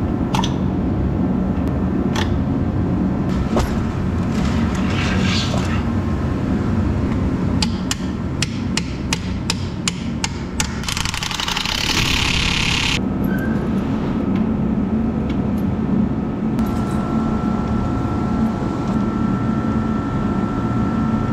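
Hand tools striking and working metal on a UTV snow track's mounting. There is a run of sharp metallic taps, several a second, starting about eight seconds in, then about two seconds of hissing noise, all over a steady low hum. A steady high tone comes in about sixteen seconds in.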